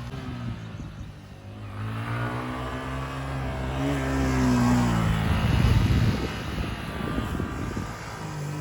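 A small vehicle engine revving on a race track. Its pitch climbs and falls as it accelerates and lets off, and it is loudest and roughest about five to seven seconds in.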